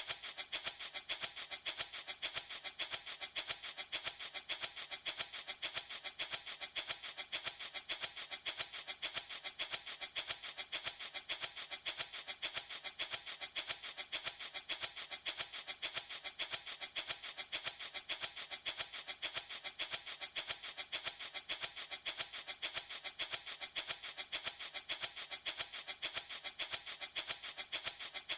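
Handmade baby rattle shaken in a steady, even rhythm of about three to four shakes a second: a continuous dry rattling of small beads inside.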